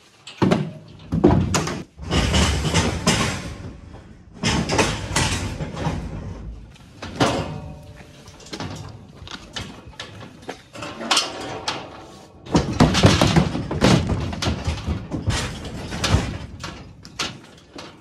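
Galvanised steel gates and hurdles of a cattle handling race banging and rattling in repeated loud clatters as cattle are worked through toward a livestock trailer.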